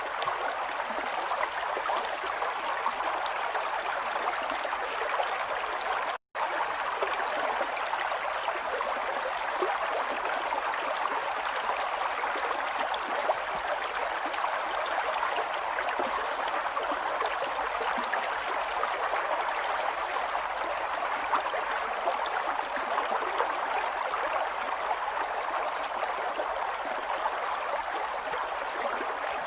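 Flowing water running steadily, trickling and splashing like a small stream. It cuts out for a moment about six seconds in.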